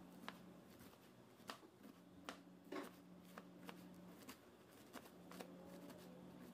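Faint, irregular taps of a chef's knife chopping spring onions on a plastic cutting board, about ten cuts in all.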